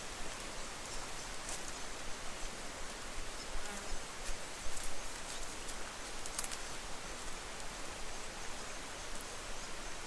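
Steady hiss of rainforest ambience with a few faint, soft footsteps on a leaf-litter track.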